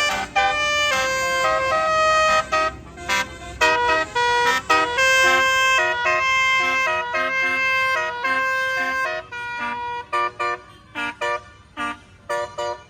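Tour bus's basuri telolet horn, a multi-tone air horn, playing a quick melody of short and held toots at several pitches. The notes break into shorter, choppier toots in the last few seconds.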